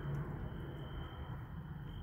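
A thin, high, steady insect trill that stops about two-thirds of the way through and starts again near the end, over a low rumbling background noise.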